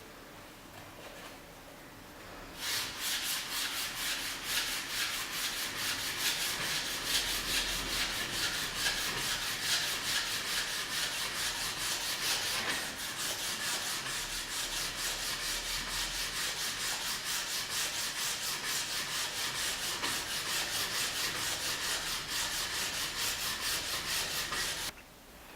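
Wood being sanded: a steady run of quick, even rubbing strokes that starts about three seconds in and stops abruptly just before the end.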